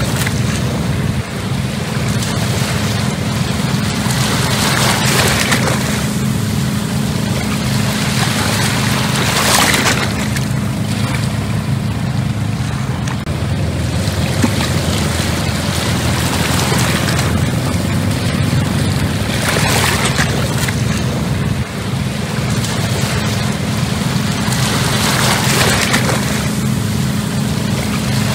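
Fishing trawler's inboard diesel engine running steadily as the boat passes close by: a low, even hum. A rushing noise swells every few seconds over it.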